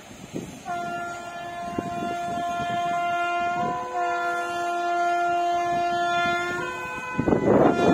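WAP-7 electric locomotive's multi-tone air horn sounding one long blast of about six seconds, its chord shifting twice along the way. Near the end, a loud rush of the passing train rises sharply under the horn.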